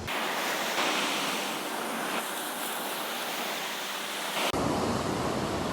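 Ocean surf washing on the beach, a steady hiss of breaking waves, with some wind on the microphone.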